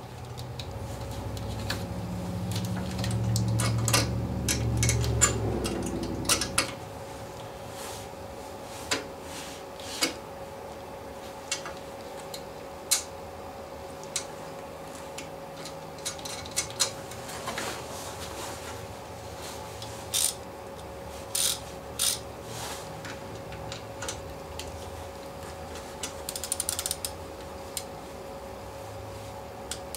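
Small metal clicks and taps of hand tools and wire terminals on a Polaris Sportsman ATV's starter solenoid as its cables are fitted, scattered and irregular. Under them a low hum builds for the first six seconds and stops abruptly.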